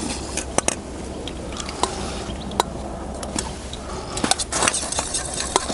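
Spoons clinking and scraping against metal bowls as several people eat soup: sharp, scattered clicks every half second or so, over a steady low rumble.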